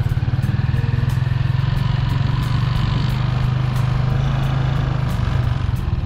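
Small engine running steadily with a rapid, even pulse.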